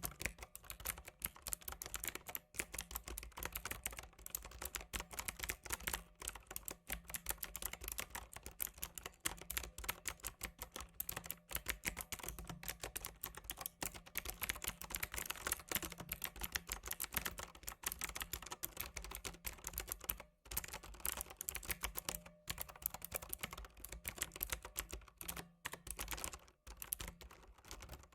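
Fast, continuous typing on a computer keyboard: a dense run of key clicks broken by a few brief pauses.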